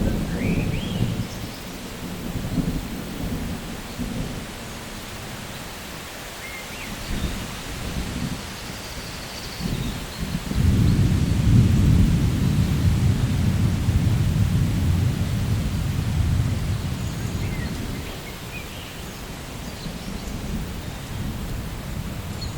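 Thunderstorm: steady rain hiss under rolling thunder. A rumble dies away over the first few seconds, then a louder, long rumble starts about halfway through and fades over several seconds.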